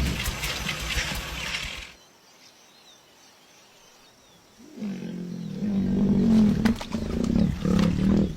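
Lion growling: a low, drawn-out growl starts a little past halfway and runs on to the end. Before it, about two seconds of rough, hissy noise, then a short near-silent gap.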